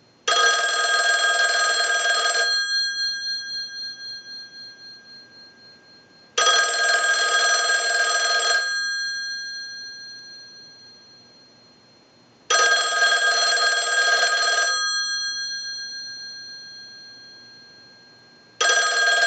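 Single-slot payphone's ringer bell ringing in bursts about two seconds long, about six seconds apart, four times, each ringing out slowly as it stops. This is a test ring cycle sent from a line analyzer, and it shows the phone rings in properly.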